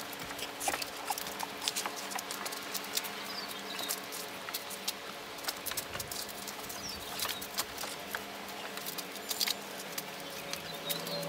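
Large microfibre drying towel being wiped over the wet painted bodywork of a ute: irregular light rubbing, scuffing and ticking, with a faint steady hum underneath.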